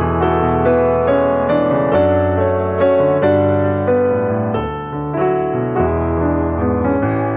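Background music led by piano: a calm melody over held bass notes.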